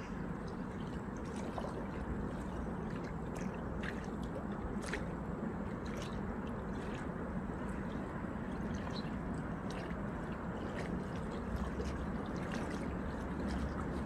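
Small river waves lapping at the shore over a steady low rumble, with faint, scattered light splashes and clicks.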